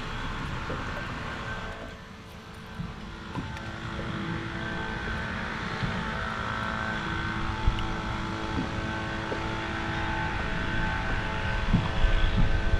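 A boat motor running steadily, a whine of several steady tones over a low rumble. It dips briefly about two seconds in and grows louder near the end.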